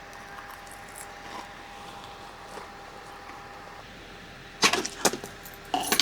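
A few sharp knocks and clatters in two quick clusters near the end, over a faint steady hum.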